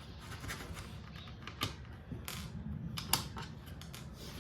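Screwdriver working screws out of the plastic clamshell housing of a cordless tyre compressor: several small sharp clicks and creaks from the tool and the plastic casing being handled.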